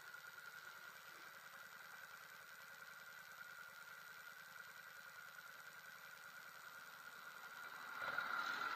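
Yamaha V Star 650 V-twin idling quietly while stopped. Near the end a passing vehicle swells up louder.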